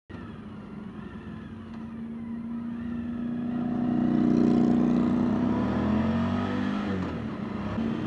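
A 2014 Honda CTX700's parallel-twin engine running at road speed, with wind noise, heard from a GoPro mounted on the bike. The engine swells to its loudest about halfway through, then eases as the pitch falls.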